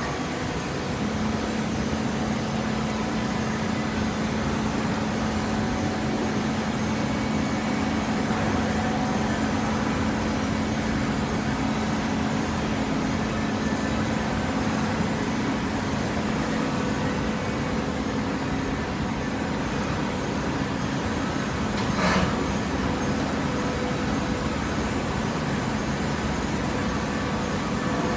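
Hydraulic cardboard baler running: a steady motor-and-pump hum with a constant tone that sets in about a second in. A single sharp knock comes near the end.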